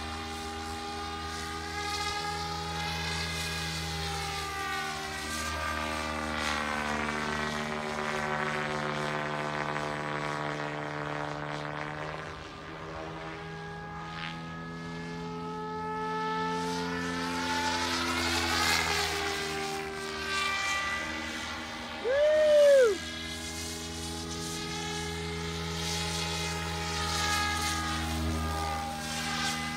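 Radio-controlled model helicopter flying overhead: a steady drone from its rotors and motor, its upper tones sweeping up and down as it moves about the sky. About three-quarters through, a brief loud whistle-like tone rises and falls.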